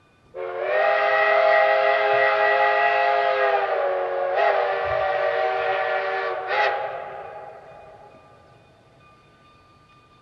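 Steam locomotive chime whistle, most likely K36 No. 484's, sounding one long blast of several notes together. It starts sharply, holds about six seconds with two brief surges, then trails off.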